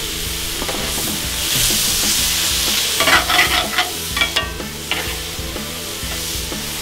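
Cubes of steak sizzling on a hot Cuisinart 360 flat-top griddle. Metal tongs click and scrape against the griddle surface in a quick cluster about three to four seconds in, and once more near five seconds, as the pieces are turned.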